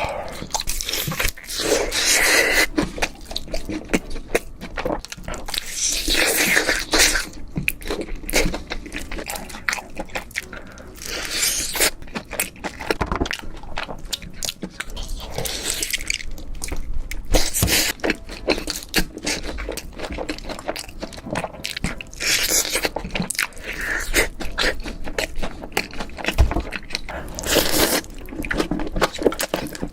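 Close-miked eating: repeated crunching bites and chewing of crispy food, in irregular bursts.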